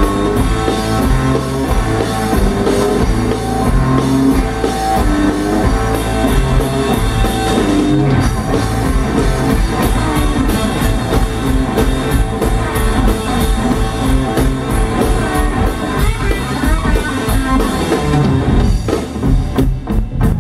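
Live blues-rock trio playing an instrumental passage: electric guitar over electric bass and a drum kit, with a steady beat.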